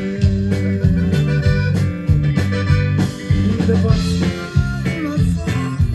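Live Mexican band playing an instrumental passage, with a strong, rhythmic bass line and drums under sustained melody instruments, and no singing.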